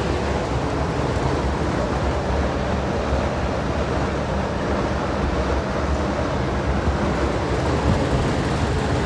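Steady low rumble with a rushing noise of running machinery, unchanging throughout.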